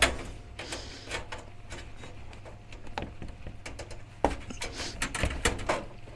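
Handling noises from setting up a portable diesel heater: a string of sharp clicks and knocks as parts are moved and fitted, the loudest right at the start and a cluster about four to five seconds in.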